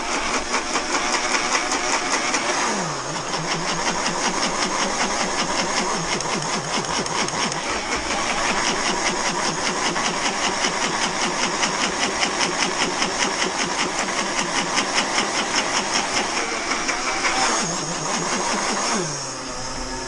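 Electric blender running, dry-grinding annatto seeds with cornmeal into colorau, with a fast, even rattle as the jar is shaken on its base to keep the dry mix from sticking. The motor's pitch dips briefly about three seconds in, then winds down and stops at the end.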